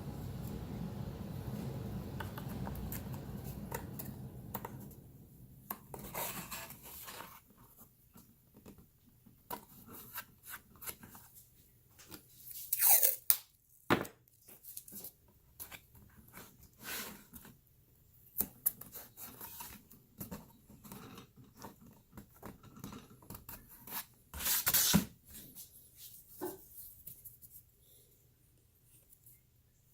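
Painter's tape being pulled off the roll and torn into strips, in a few short tears, with light clicks and handling noises in between.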